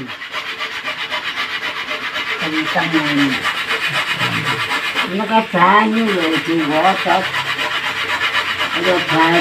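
Coconut being grated by hand: a fast, even rasping scrape that keeps going, with low voices talking over it at times.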